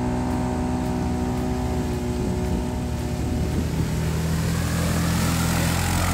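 ATV engine running steadily as the four-wheeler drives through a shallow creek toward the listener, its tyres throwing up water; the splashing grows louder near the end as it comes close.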